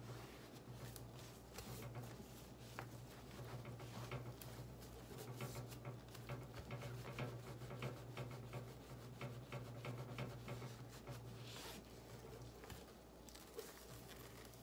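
Soft cloth wiping and rubbing over a mini amplifier's casing and control knobs, with many small irregular taps and rustles from gloved hands handling it. A steady low hum runs underneath.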